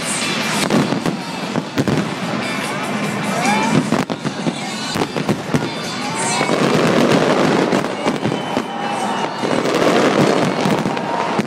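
Large aerial fireworks display at full barrage: many shells bursting in quick succession with sharp bangs and dense crackling, swelling louder about halfway through and again near the end.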